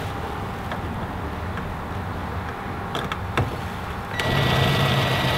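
Cordless drill starting about four seconds in and running steadily with a thin constant whine, driving a bolt into a threaded rivnut insert.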